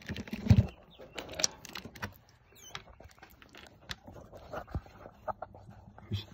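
A thump about half a second in, then scattered light clicks and soft rustling as a pet Virginia opossum burrows into bath towels inside its nesting box.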